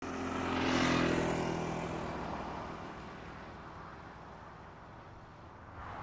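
A road vehicle passing close by, its engine and tyre noise loudest about a second in and then fading away over the next few seconds.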